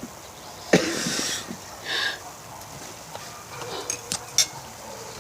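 A fork clicking and clinking against a plate several times. A sharp hissing burst about three quarters of a second in is the loudest sound.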